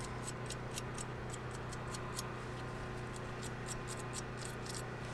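Metal wire brush scrubbing the pad-clip seats of a front brake caliper bracket clean, a quick run of short scratchy strokes at about five a second.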